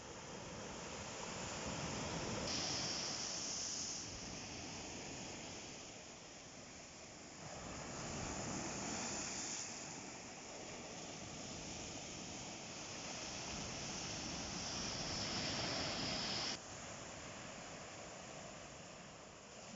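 Ocean waves breaking on the shore, the surf rising and falling in three swells, the last cutting off suddenly.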